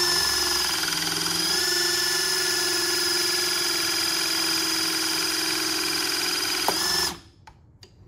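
Battery-powered 12-ton hydraulic compression crimping tool running as it presses a copper compression grounding connector onto the conductors: a steady motor-and-pump whine that shifts slightly about a second and a half in, then a click and the whine cuts off about seven seconds in as the crimp completes.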